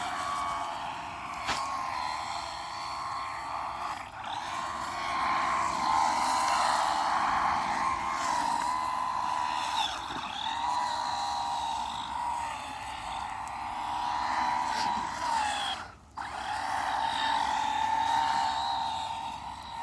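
Traxxas RC car's electric motor whining as it is driven and drifted in circles, the pitch rising and falling with the throttle. It cuts out for a moment about three quarters of the way through, then whines on.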